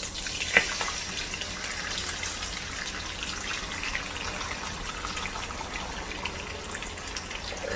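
Eggs sizzling in hot oil in a frying pan, a steady frying hiss, with one sharp knock about half a second in.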